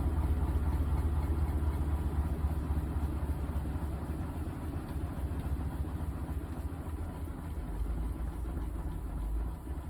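GE top-load washing machine running mid-cycle with a comforter load: a steady low motor hum that drops a little in level near the end.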